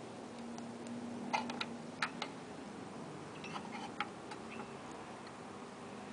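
Irregular light clicks and taps of small hard parts, metal and plastic, being handled while a computer's motherboard is being installed in its case.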